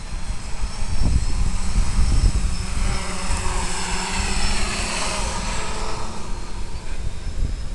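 Electric motors and propellers of a small FPV aircraft flying low nearby: a multi-tone whine that swells in the middle and falls in pitch as it goes by, over wind rumble on the microphone.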